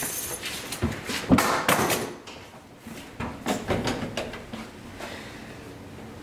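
A door banging shut, with knocks and rattling around it; the loudest bang comes just over a second in, and a few weaker knocks follow a couple of seconds later.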